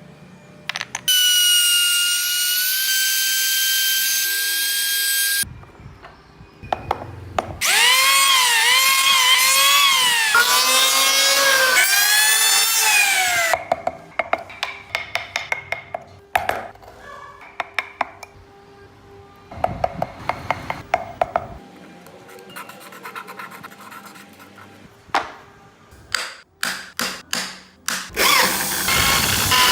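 High-speed electric power-carving tool working wood. It runs as a steady high whine for a few seconds, then its pitch dips and recovers again and again as it is pressed into the wood and eased off. Quieter stretches of scraping and sharp clicks follow.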